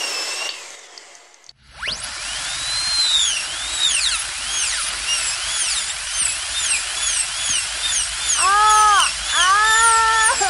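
Dental drill spinning up with a rising whine about two seconds in, then whining on with its pitch wavering up and down as it bores into a decayed tooth to drill out a cavity. Near the end the child in the chair lets out two short whimpering moans.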